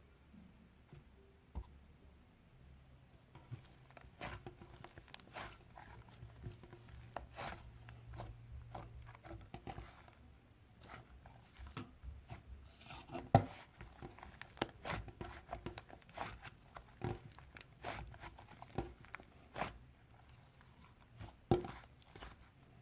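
Pink fluffy slime being squished and pressed by hand, giving faint, irregular crackling pops that begin a few seconds in.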